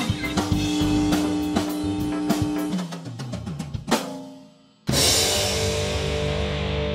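Rock music from a drum kit and an electric guitar. The drums and guitar play busily, stop with a last hit and a fade almost to silence, and just before five seconds a loud distorted electric-guitar chord comes in and is held.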